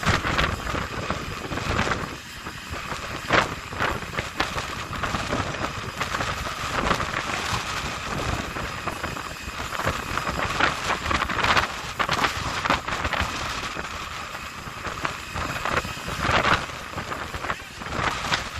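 A 29 m motor yacht burning while fire hoses play on it: a steady rushing hiss of water spray with irregular crackles and pops throughout.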